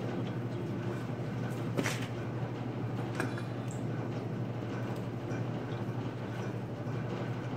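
Steady low hum of shop machinery, with two sharp metal clicks about two and three seconds in from a long-handled wrench working the bolts of a tractor steering meter pump held in a vise.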